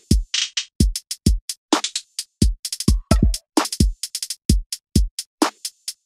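Background music: a drum-machine beat of deep kick drums with higher hits between them.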